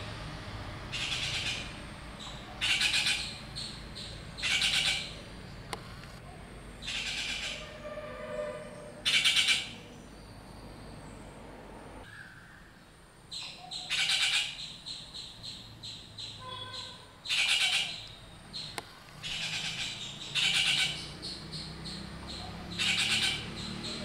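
Rufous treepies calling: short harsh calls repeated every one to two seconds, with a pause of a few seconds near the middle.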